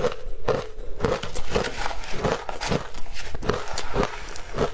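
Close-up chewing of crunchy ice coated in matcha powder: even crunches about two to three a second.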